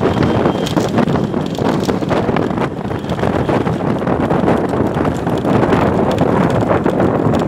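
Wind buffeting the microphone of a camera riding in a moving road vehicle, over the vehicle's rumble, with many small knocks throughout.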